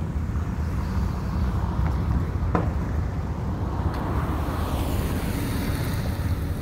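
Steady low outdoor rumble with a single sharp click about two and a half seconds in.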